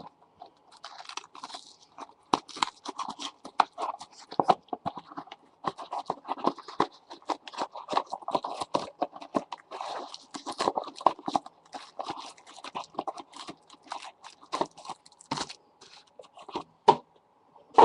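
Plastic trading-card pack wrappers crinkling and crackling in quick, irregular bursts as the packs are worked open.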